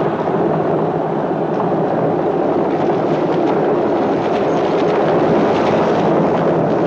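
Teams of horses galloping and chariot wheels rattling together in one dense, continuous rumble with a fast clatter running through it.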